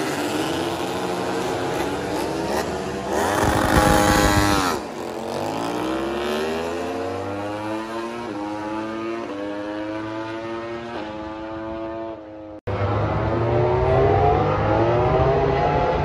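MotoGP racing motorcycles with 1000 cc four-cylinder engines accelerating hard down the straight, each engine climbing in pitch through a run of quick upshifts, loudest about four seconds in. The sound drops out abruptly about three-quarters of the way through, then another bike is heard accelerating up through the gears.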